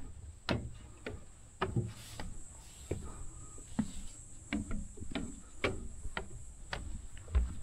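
Hiker's footsteps on the trail: irregular taps and scuffs of boots about every half second to a second, with a faint steady high-pitched tone underneath.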